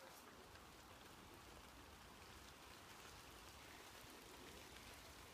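Near silence, with a faint, even hiss of light rain.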